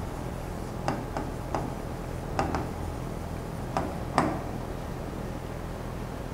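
About seven light, sharp clicks or taps at irregular spacing, some in close pairs, stopping after about four seconds, over a steady low room hum.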